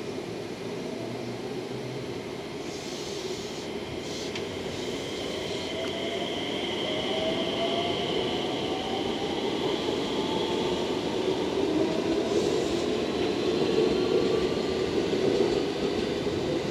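JR West 227 series 'Red Wing' electric multiple unit pulling past on the adjacent track, its wheels rumbling on the rails and its traction motors whining in slowly rising tones as it gathers speed, growing louder toward the end.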